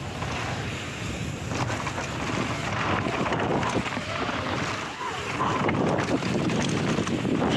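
Rushing wind noise buffeting the microphone during a fast descent, with a rough rumble and scattered knocks and rattles throughout, and a few brief rising and falling whines.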